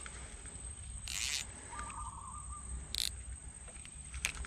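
Steady high-pitched insect drone, typical of mangrove crickets or cicadas, with a short warbling trill a little under two seconds in and two brief rustling noises about a second in and about three seconds in.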